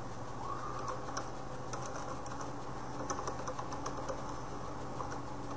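Computer keyboard typing: irregular light keystroke clicks as a word is typed out, over a steady low hum.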